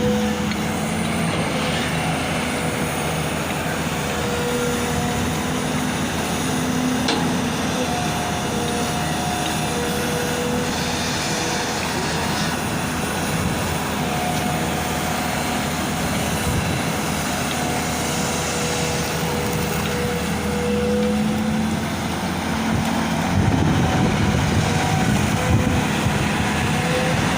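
Long-reach Tata excavator's diesel engine running steadily as it digs, with a whining tone that comes and goes and shifts in pitch. The engine gets louder about three-quarters of the way through.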